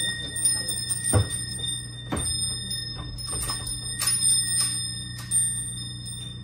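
Sharp ticking, a stronger tick about once a second with lighter clicks between, over steady high ringing tones and a low steady hum.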